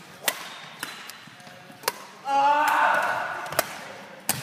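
Sharp clicks of a ball being struck and bouncing, a handful spread through a rally. A little over two seconds in comes a loud drawn-out shout from a player, lasting over a second, the loudest sound.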